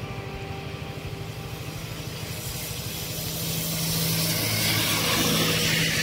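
An engine running steadily: a low hum with a fast, even pulse, getting louder about halfway through.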